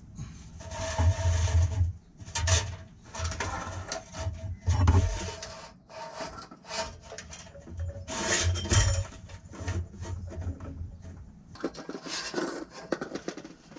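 Bundled electrical wires being fed and pulled through a hole in a steel frame rail, rubbing and scraping against the metal in irregular stretches.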